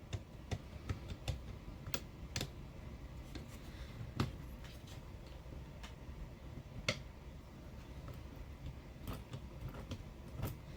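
Scattered light clicks and taps from a small RC car's front diff spool and gears being rocked by hand in their case, a check for play to see whether shims are needed. The clicks are irregular, with the sharpest about four seconds in and about seven seconds in.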